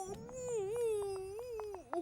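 A cartoon voice holding one long, wavering "ooh" with a whimper-like quality for nearly two seconds, with a few faint clicks under it.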